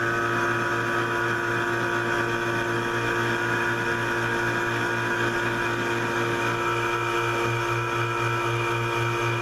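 Electric vacuum pump of a transmission valve-body vacuum test stand running steadily, a low hum that pulses about four times a second, with higher whining tones. It is pulling vacuum on the actuator feed limit circuit of a 4L60E valve body.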